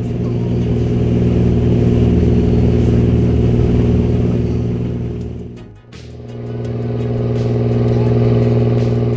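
Fishing boat's engine running steadily at cruising speed, a deep even drone, with water rushing and spraying along the hull. The sound dips away briefly about six seconds in and comes back the same.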